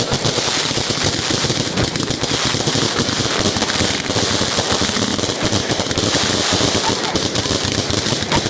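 Fireworks going off in a rapid, continuous crackle of dense pops without a break.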